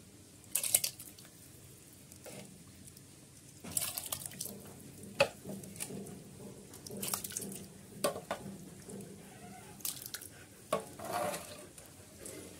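A milky dog-food mixture being stirred with a metal rod in an aluminium pot as milk is mixed in, the liquid sloshing and splashing in several short bursts.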